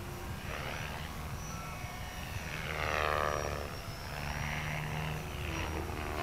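Electric RC model airplane's motor and propeller whining as it flies by, swelling to its loudest about three seconds in, with the pitch sweeping down as it passes.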